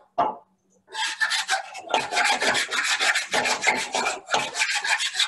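Hand file rasping back and forth inside the cut end of an oar handle in quick strokes, about four or five a second, after one stroke and a short pause. It is cleaning out the last of the old end plug and adhesive residue so a new end plug can be bonded in.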